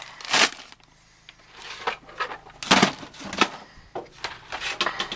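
Plastic parts bags crinkling and boxes of fittings being shifted in a storage bin, with several sharp knocks, the loudest a little under halfway through.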